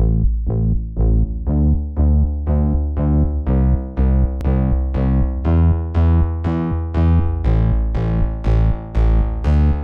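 Background electronic music: synthesizer notes struck on a steady beat, about two a second, over a deep bass line.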